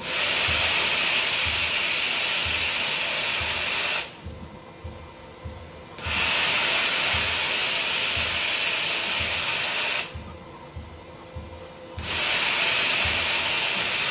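Compressed air hissing inside a Roders RXU1001 5-axis CNC machining center, in blasts of about four seconds that stop sharply for two seconds and start again, twice. A faint low throb repeats underneath throughout.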